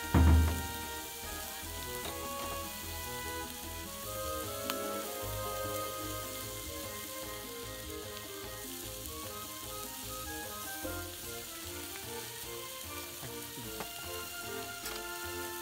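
Slices of beef steak sizzling and frying in a hot skillet over a gas burner, under background music. A loud low thud comes just after the start.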